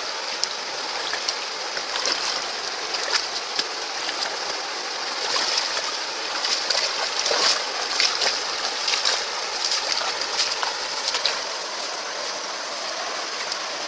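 Flowing stream water with many small splashes.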